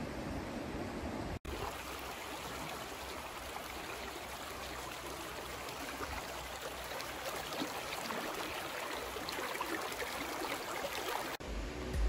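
Creek water running over rocks, a steady rushing with small splashes. About a second in, it cuts abruptly from a windier riverside sound.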